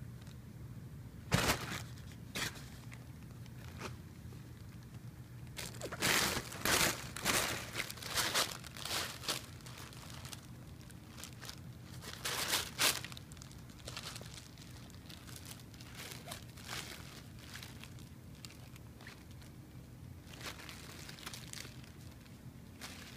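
Fabric cat play tunnel crinkling and rustling in short bursts as a hand and kittens push against and move through it. It starts with a couple of crisp crackles, then a longer run of crinkling near the middle and fainter rustles toward the end.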